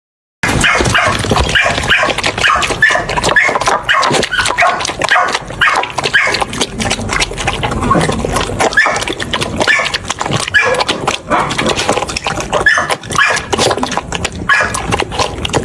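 Puppy yapping and whining in many short high calls, mixed with lots of sharp clicks and scuffling. It starts suddenly about half a second in.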